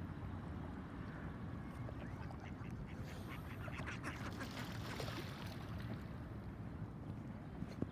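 Ducks quacking, a quick run of short calls about three seconds in that lasts a couple of seconds, over a steady low rumble.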